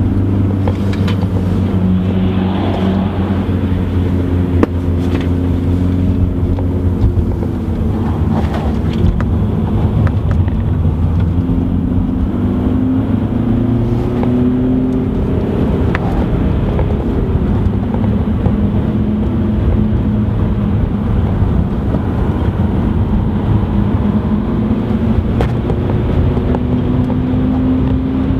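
BMW 118d's four-cylinder diesel engine under way at track speed, heard from inside the cabin, its pitch climbing and dropping back several times, over heavy road and wind noise.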